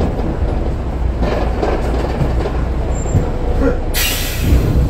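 Double-decker bus heard from inside, its engine and drivetrain giving a steady low rumble as it draws up behind a car at a red light. About four seconds in comes a short, loud burst of air hiss from the bus's air brakes as it comes to a stop.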